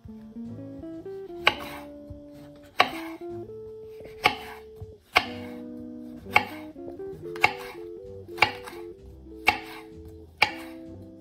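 Kitchen knife slicing a green capsicum into strips on a wooden cutting board: nine crisp chops about a second apart, over soft background music.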